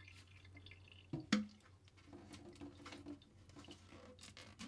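Water dripping with scattered small clicks and knocks, one louder knock with a short ring about a second in, as a boiler's condensate trap is taken off and emptied for cleaning.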